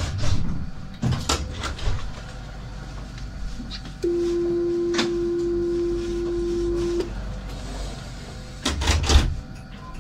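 Door-closing warning on a Citadis 302 tram at a stop: one steady beep held for about three seconds, with several sharp clunks of the doors and door gear in the first two seconds and again as the doors shut near the end.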